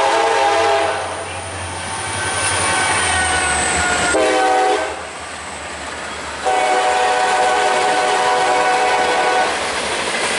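CSX freight locomotive's air horn blowing the grade-crossing signal: two long blasts, a short one, then a final long one, over the low rumble of the approaching train.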